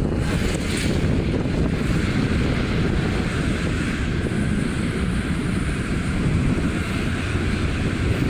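Steady road and wind noise of a moving car: a low tyre rumble with a wind rush, heard from inside the car.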